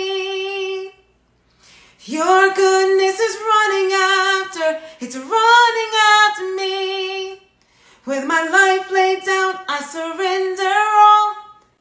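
A woman singing a worship song solo without accompaniment: a phrase ending about a second in, then three long held phrases with short breaths between them.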